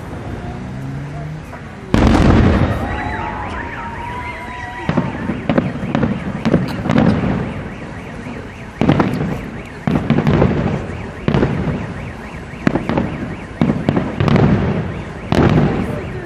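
Aerial fireworks shells bursting in quick succession: about a dozen sharp bangs, each trailing off in a rumbling echo and crackle.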